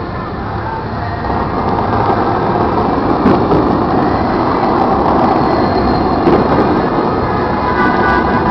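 Steady loud rush of the Bellagio fountain's water jets shooting up, swelling a couple of seconds in, with a few sharp fireworks pops near the end.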